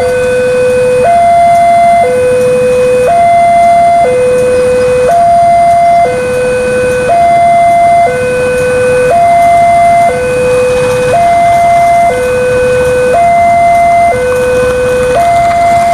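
Electronic two-tone warning alarm, switching between a low and a slightly higher tone about once a second, over the low rumble of a diesel locomotive moving slowly.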